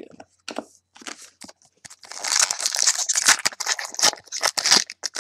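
Foil wrapper of a trading-card pack crinkling and tearing as it is ripped open, a dense crackle that starts about two seconds in, after a few light clicks of cards being handled.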